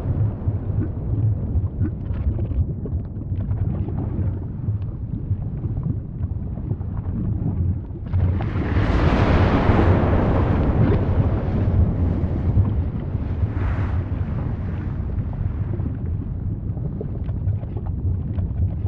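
Volcanic eruption: a continuous deep rumble with scattered crackles, swelling into a louder hissing blast about eight seconds in, with a shorter surge near fourteen seconds.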